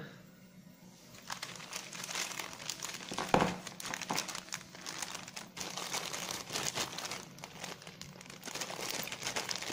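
Clear plastic zip-lock bag of electronic components crinkling as it is handled and lifted, starting about a second in, with one knock about three and a half seconds in.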